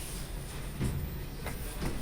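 Low steady rumble inside an Orona 3G lift car, with a few faint knocks through the middle and near the end. This is the lift that the rider says feels like it is in rougher condition.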